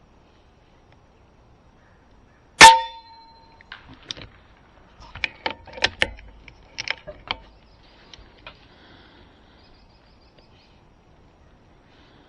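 A single shot from a Kalibrgun Cricket .25 calibre PCP airgun, a sharp crack with a brief metallic ring, followed over the next few seconds by a run of quieter clicks and clacks, the sort of sound the gun's side lever makes when it is cycled to chamber the next slug.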